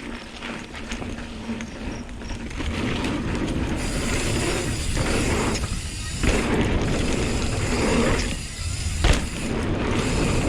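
Hardtail mountain bike riding fast down a jump trail: wind rushing over the microphone, tyres on dirt and the bike rattling, with sharp knocks from landings, the loudest about nine seconds in.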